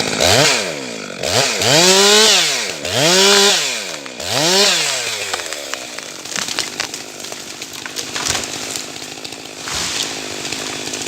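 Chainsaw engine revved up and back down four times in quick succession, then running on steadily at speed through the rest.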